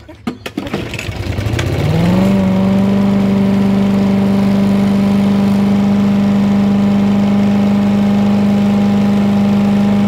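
Petrol walk-behind rotary lawn mower pull-started: after a few clicks the engine catches about a second in, speeds up and settles into a steady, even run at its set throttle.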